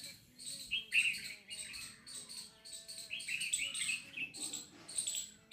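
Small birds chirping: a continuous run of short, high chirps several times a second, with louder bursts about a second in and again around three to four seconds in.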